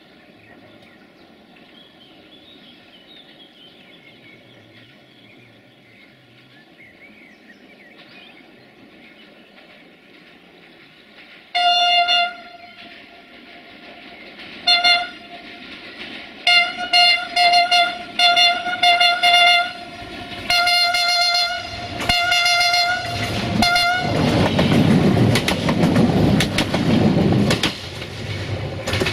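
A train approaches sounding its single-pitch horn in about ten blasts, mostly short, the last two longer. It then passes close by with a loud rumble and wheel clatter, after quiet outdoor background for the first ten seconds or so.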